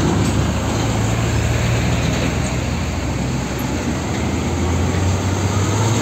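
Heavy diesel trucks running close by, a Hino 500 fuel tanker among them: a steady low engine rumble with road and traffic noise.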